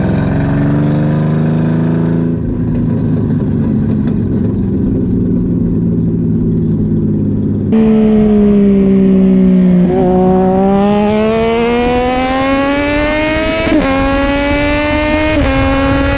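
Car engine running with a slowly wavering pitch. About eight seconds in, the sound cuts abruptly to an engine whose pitch dips and then climbs steadily, like a car accelerating.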